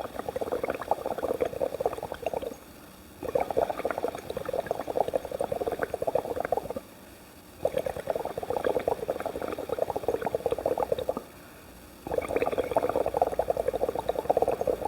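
Bubbles blown hard through a drinking straw into a glass of water, making a rapid bubbling. It comes in four bouts of about three seconds each, one per breath, with short pauses between.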